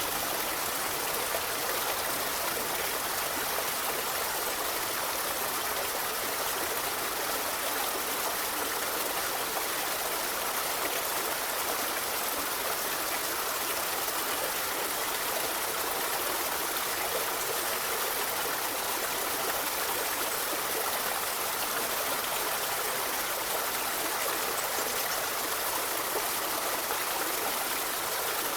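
Forest river flowing, a steady even rush of running water.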